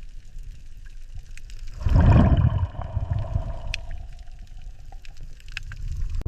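Underwater ambience: a steady low rumble with scattered faint clicks, swelling into a loud whoosh about two seconds in that trails off into a faint, slowly falling tone.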